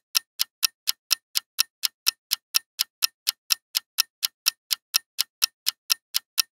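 Countdown timer sound effect: a clock ticking evenly, about four sharp ticks a second, marking the time left to answer.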